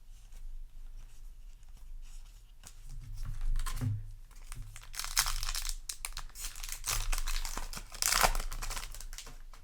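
Foil booster-pack wrapper being torn open and crinkled in the hands: a run of rustling, crackling tears, loudest about five seconds in and again about eight seconds in.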